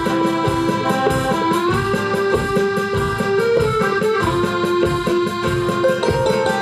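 Live band music: a keyboard plays a melody in long held notes that step up and down in pitch, over tabla strokes and acoustic guitar.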